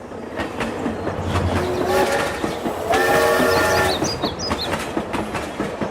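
Train running on the rails with a steady clatter of wheel clicks. A horn sounds twice, briefly about two seconds in and then for about a second.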